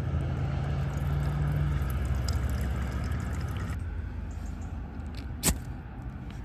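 Steady hiss and hum of nearby road traffic, with a single sharp click about five and a half seconds in as a Trangia methanol spirit burner is lit.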